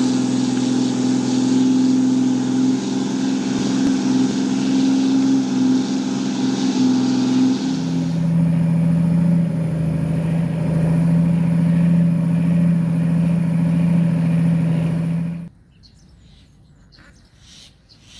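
An engine running steadily; its pitch drops a step about halfway through, and it cuts off suddenly a few seconds before the end.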